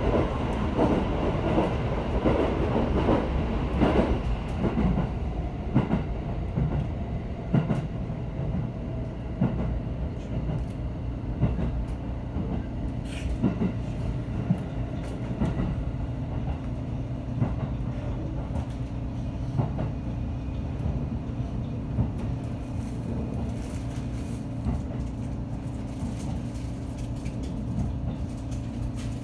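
A JR 313 series electric train running on the track, heard from inside the carriage: a steady low rumble with sharp clicks of the wheels over rail joints. The clicks come thickest early on and grow fainter and sparser, and a steady hum sets in about two-thirds of the way through.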